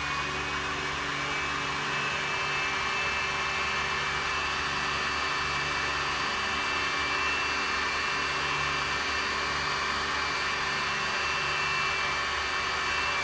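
Cooling fans of a battery load tester whirring steadily at full speed with a high whine while it draws about 280 amps.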